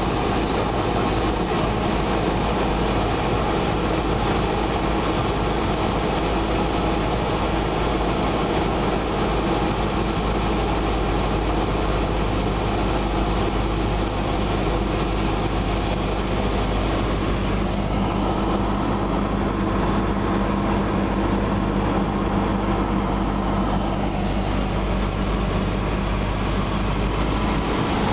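Cessna 172S's four-cylinder Lycoming IO-360 engine and propeller running steadily at approach power, heard inside the cockpit together with the hiss of airflow around the cabin.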